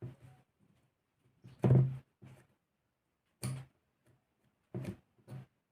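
Metal engine parts and hand tools knocking and clicking against each other and the work table while a Saito FA-300T model aircraft engine is taken apart: a series of about seven short knocks, the loudest about two seconds in.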